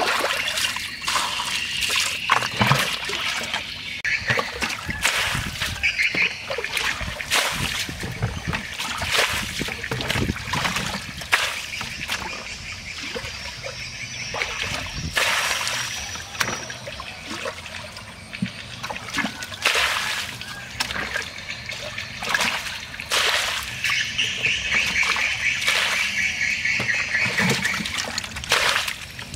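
Plastic bucket scooping muddy water out of a shallow pit and tipping it out, a splash and slosh about once a second.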